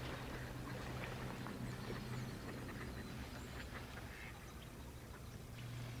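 Flock of mallard ducks quacking faintly in scattered, overlapping calls, over a low steady hum.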